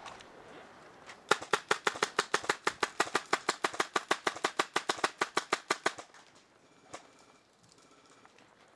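Airsoft gun firing a long string of rapid shots, about nine a second for nearly five seconds, then one more shot about a second later.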